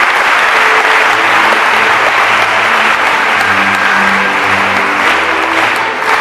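Audience applauding steadily, with Scottish country dance music starting underneath about a second in; the clapping thins out near the end.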